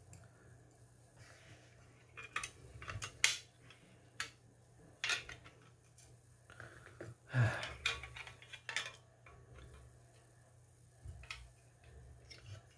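Hard plastic model-car chassis parts being handled and turned over: scattered clicks and clacks, with louder knocks about three, five and seven seconds in.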